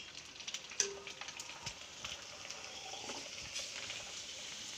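Dried fryum snack wafers deep-frying in hot oil in a wok: a faint, steady sizzle with scattered small crackles and clicks.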